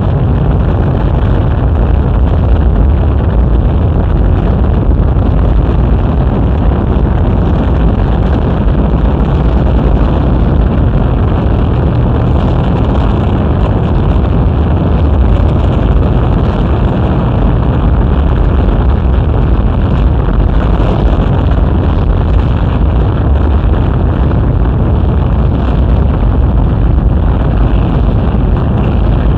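The Saturn V's five F-1 first-stage engines heard from miles away as the rocket climbs: a loud, steady, unbroken rumble, heaviest in the deep bass, recorded on a small portable tape recorder that dulls the top end.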